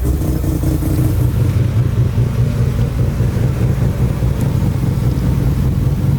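Car engine running steadily with a low, even hum and no change in revs.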